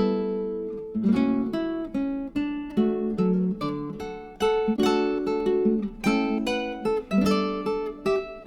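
Background music: acoustic guitar playing plucked, strummed chords in a steady rhythm.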